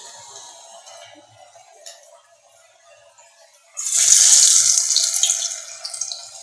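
Masala vadai frying in hot oil in a kadai: the sizzling dies down to a faint crackle, then jumps suddenly to a loud, hissing sizzle about four seconds in and slowly eases off.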